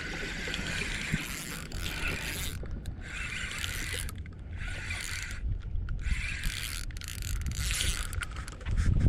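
Spinning reel being cranked to wind in line, a whirring with gear clicks that comes in several spurts with short pauses between, over a low rumble of wind and water.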